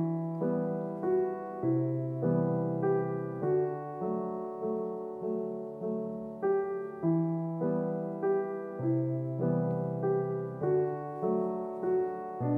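Background piano music: a steady run of struck notes, each fading away, over lower bass notes.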